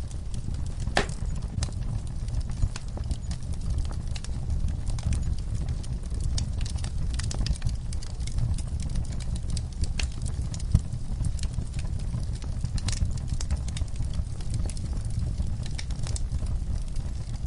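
Wood fire crackling in a fireplace: irregular sharp pops and snaps over a steady low rumble of the burning logs, with a few louder snaps.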